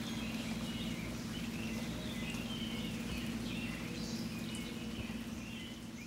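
Steady rainfall with birds chirping over it: short high calls repeating throughout, over an even hiss and a low steady hum.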